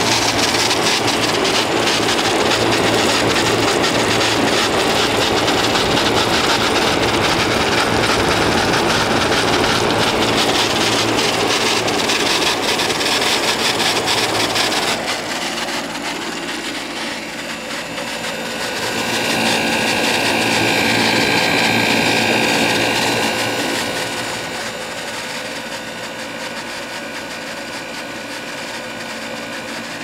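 1971 McGraw Edison Thomas Edison 6000 BTU window air conditioner running on cool, its fan blowing air and compressor running steadily. About halfway through the sound changes abruptly and grows quieter, with a faint steady whine over the airflow after that.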